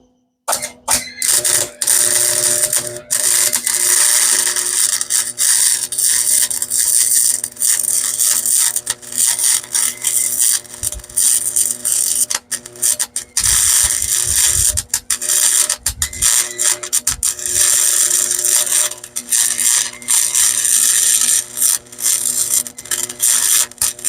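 Electric arc welding a steel shock mount: the dense, crackling sizzle of the welding arc. It starts about half a second in and has a few brief breaks where the arc stops and restarts.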